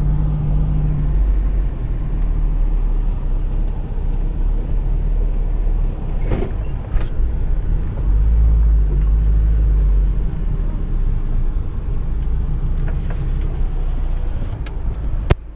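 Engine of a compact 4x4 SUV running steadily, heard from inside the cabin as it drives on the sand dunes. There is a knock about six and a half seconds in and a sharp click near the end.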